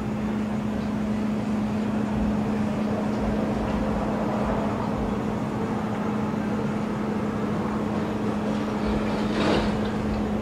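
Steady low hum on one pitch over a constant rushing noise, like a running machine, with a brief brighter swell near the end.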